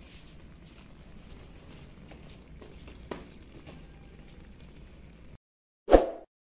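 A faint, steady hiss with a few light crackles, which cuts off suddenly. About six seconds in comes a short, loud pop sound effect as an animated subscribe button pops onto the screen.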